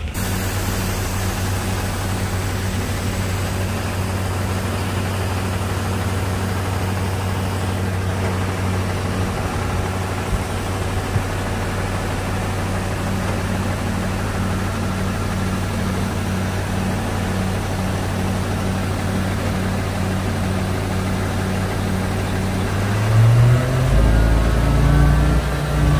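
Tata Signa BS6 tipper truck's diesel engine idling steadily, then revving up near the end with its pitch rising.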